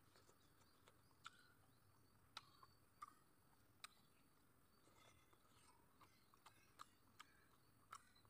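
Faint, close mouth sounds of a person eating rice and curry by hand: soft wet chewing with about a dozen small smacks and clicks at irregular moments.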